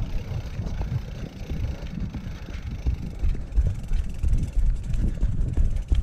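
Cyclocross bike riding over rough ground: a gusty low rumble of wind on the microphone, mixed with the uneven rattle and knocks of the bike.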